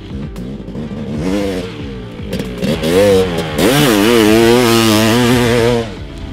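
Honda CR500 single-cylinder two-stroke engine with dual exhaust, ridden, its revs rising and falling with the throttle. Quieter for the first couple of seconds, then opened up loud from about three seconds in until near the end.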